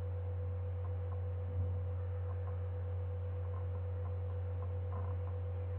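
Steady low hum with a fainter, higher steady tone above it, and a soft bump about one and a half seconds in.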